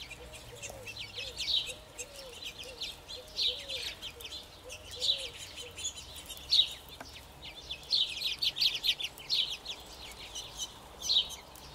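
A foraging covey of quail calling: quick high chirps coming in clusters every second or so, over soft low clucking notes that repeat in the first half and then die away.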